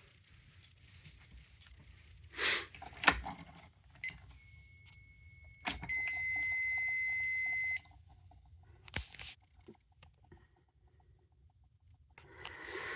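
Fire alarm annunciator beeping during a system reset: one steady high-pitched beep lasting about two seconds, cut off sharply, with a fainter tone just before it. Clicks and handling noises come before and after the beep.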